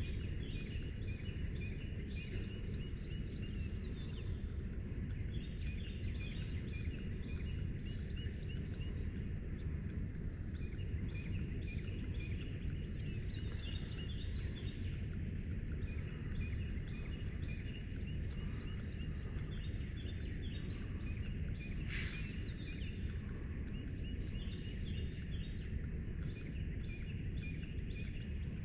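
Repeated trains of quick, high chirping animal calls at several pitches, coming and going over a steady low rumble. A single sharp click sounds about 22 seconds in.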